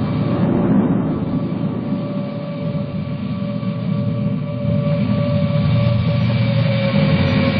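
Film sound effect of a hovering flying car's engine: a steady low rumble with a thin, steady whine on top, growing a little louder about five seconds in.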